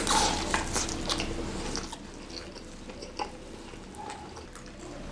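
A person chewing a mouthful of sambal-covered fried chicken, with wet mouth clicks that are loudest in the first second, then softer and scattered.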